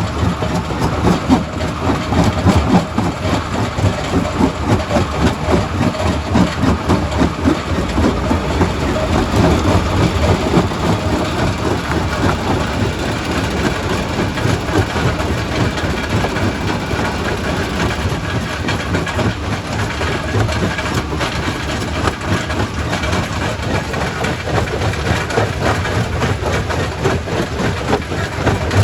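Quarry primary rock crusher running and breaking stone: a steady heavy mechanical rumble filled with dense, irregular knocks and cracks of rock.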